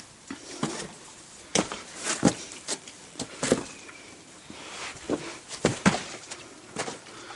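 Footsteps on a wet, rocky bush track: about eight irregular, uneven steps and scuffs.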